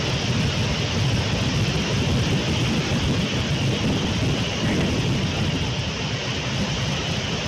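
Steady roar of a large dam spillway discharging through 24 open crest gates: a heavy, even rush of falling water with a deep rumble underneath and no breaks.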